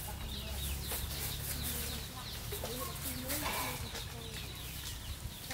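Hens clucking now and then in short curved calls, most of them a little past halfway, over a low steady rumble.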